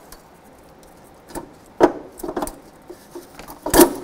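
Rusty steel exhaust pipe flange and its triangle gasket knocking against the exhaust manifold studs as the pipe is pushed on by hand: a handful of short clunks, the loudest near the end.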